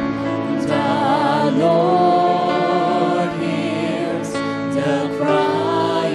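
Christian worship song: singing voices with vibrato over steady sustained instrumental backing.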